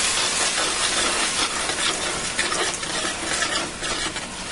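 Chicken broth being poured into a hot margarine-and-flour roux in a large pan, hissing and sizzling steadily as a utensil stirs it. Short scraping strokes of the utensil against the pan become more distinct from about a second and a half in.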